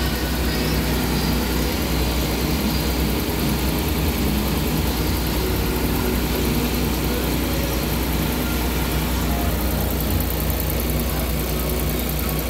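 Freshly rebuilt Suzuki K6A 660 cc three-cylinder engine idling steadily, its RPM holding even.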